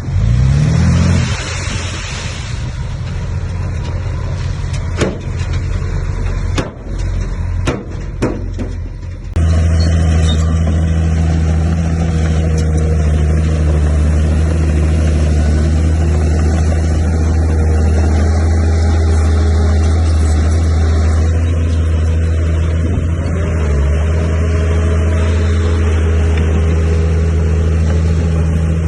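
Diesel engine of heavy earthmoving machinery running, revving up just after the start, with a few sharp knocks a few seconds in. About nine seconds in the sound switches abruptly to a steadier, louder engine drone that holds to the end.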